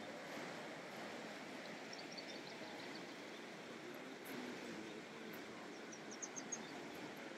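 Faint, steady rush of river water, with two short runs of high bird chirps, one about two seconds in and one near the end.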